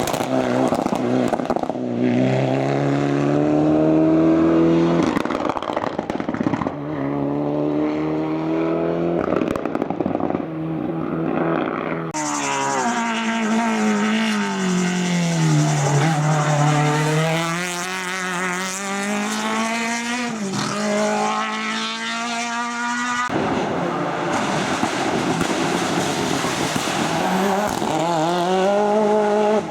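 Racing car engines at hard throttle, their note climbing and dropping again and again through gear changes. The sound changes abruptly a few times as different cars follow one another.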